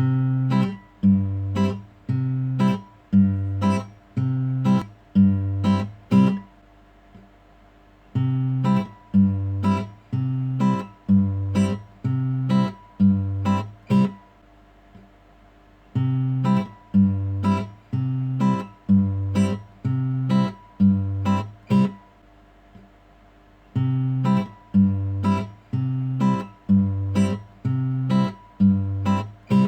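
Background music of acoustic guitar strumming: a short repeating chord pattern in phrases of about six seconds, each followed by a pause of about two seconds.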